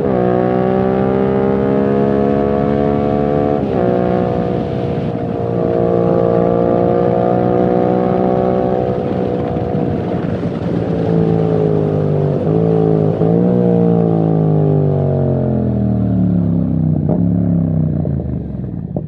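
Yamaha MT-07's 689 cc parallel-twin engine through a full titanium exhaust with no dB killer, running under load while riding. Engine pitch rises and falls with the throttle, with a few brief breaks at gear changes, then drops away steadily over the last five seconds as the bike slows.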